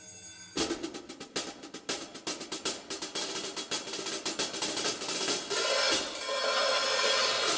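Zildjian cymbal struck rapidly with wooden drumsticks, starting suddenly about half a second in; the strokes come faster and louder until they merge into a continuous ringing wash.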